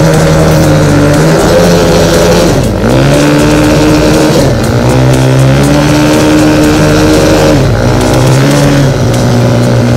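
Quad (ATV) engine running loudly close by, its revs dropping and picking up again several times as it is ridden.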